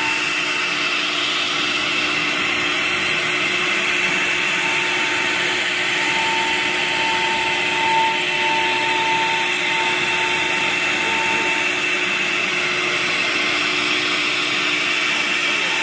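Nesting CNC router's spindle cutting through particleboard, a steady whine over the rushing noise of the cut. A further whistling tone swells and pulses for a few seconds in the middle.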